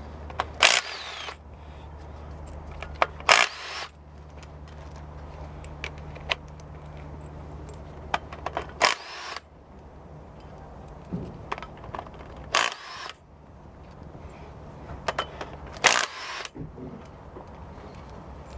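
Hammer blows on a cast-iron brake rotor to knock a Datsun 720 front hub loose: five heavy metal strikes a few seconds apart, each ringing briefly. A steady low hum runs underneath.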